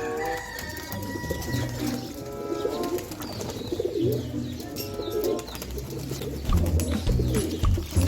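Pigeons cooing, a run of low repeated coos.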